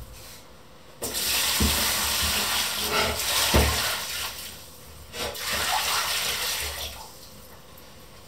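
Kitchen sink tap running as a metal saucepan is rinsed under it, in two spells of about three seconds and two seconds, with a couple of low thumps from the pan.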